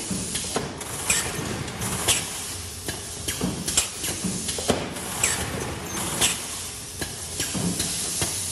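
Cobra 2100 case erector running: a steady machine noise with irregular sharp clacks and short hisses, one every half second to a second, as its mechanisms cycle to erect cardboard cases.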